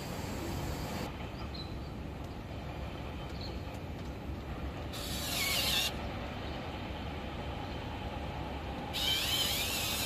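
Steady hum of Daikin VRV air-conditioning outdoor units running. Refrigerant gas hisses with a thin whistle in two short bursts, about five seconds in and again about nine seconds in, escaping at the charging hose fitting on the unit's service port.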